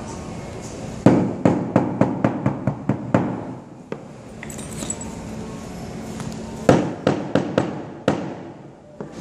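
A mallet rapidly tapping a chisel through water buffalo hide into a wooden block, the carving of a wayang shadow puppet's pattern. It comes as two quick runs of sharp taps, about four or five a second, with a pause between them.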